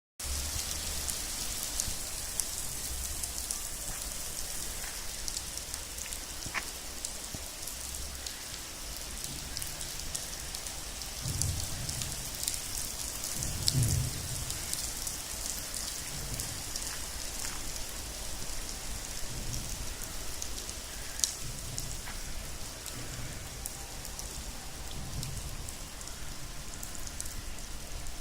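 Steady rain falling: an even hiss dotted with many fine drop ticks. A few low rumbles swell up around the middle.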